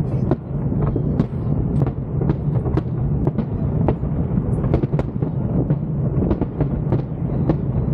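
Large fireworks display: aerial shells bursting in quick succession, a continuous deep rumble of booms broken by sharp cracks several times a second.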